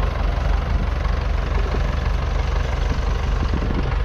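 1951 Nuffield Universal DM4 tractor's 3.4-litre four-cylinder diesel engine running steadily under load, pulling a two-furrow plough, with an even low throb.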